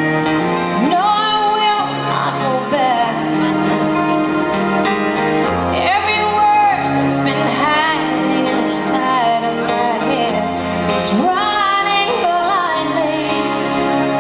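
A woman singing a ballad live into a microphone, with acoustic guitar accompaniment. The vocal comes in three phrases, beginning about a second in, around six seconds and near eleven seconds, over steady guitar chords.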